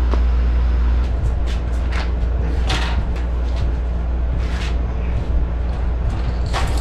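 A steady low rumble throughout, with scattered short knocks and scrapes as a steel outdoor table is moved and handled.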